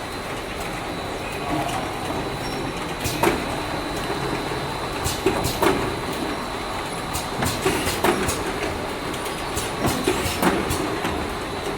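Automatic bottle weighing, filling and capping line running: a steady machine noise with irregular clacks and knocks, and a faint steady high whine.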